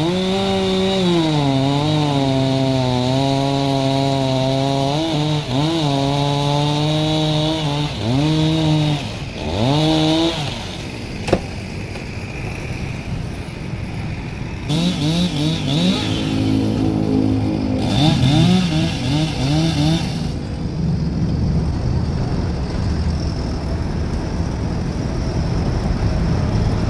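Chainsaw running at high revs, its pitch dipping and recovering as it is worked through the wood, cutting out about ten seconds in. A chainsaw is revved again in short bursts from about fifteen to twenty seconds, followed by a low steady rumble.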